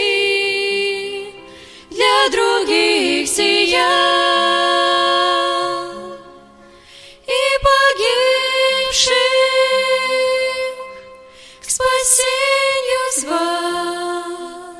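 Women's voices singing a Christian song in three long phrases of held notes. The last phrase trails off at the close of the song.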